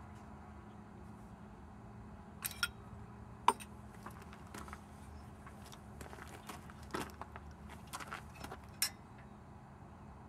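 Scattered metallic clicks and clanks of a tube notcher's vise and drill carriage being handled and adjusted, the loudest about three and a half seconds in, over a faint steady low hum.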